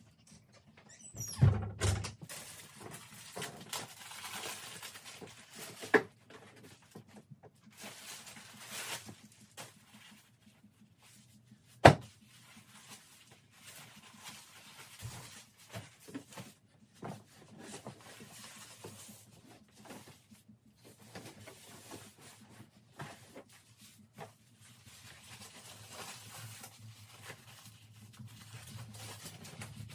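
Large plastic-backed absorbent pad rustling and crinkling as it is unfolded and shaken out over a plastic kiddie pool, with a few sharp knocks, the loudest about twelve seconds in.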